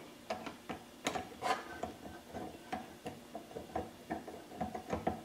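Hand screwdriver turning the old screws through a wooden drawer front into a new brushed nickel cabinet pull: a run of irregular small clicks and ticks, several a second.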